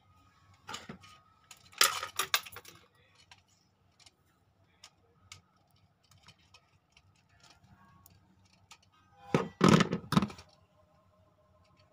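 Small clicks, taps and scrapes of a screwdriver and a plastic light-switch plate being handled at an open wall box. A cluster of clicks comes about two seconds in, and a louder clatter of knocks about ten seconds in.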